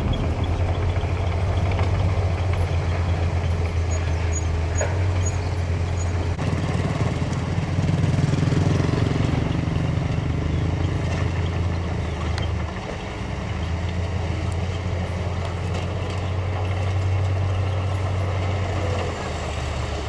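Heavy diesel dump truck engines running steadily with a low hum. About six seconds in the engine note changes, and from then on it is the engine of a truck holding its bed raised while it tips dirt.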